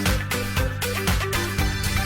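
Background music with a steady dance beat, about four beats a second, with held notes over it.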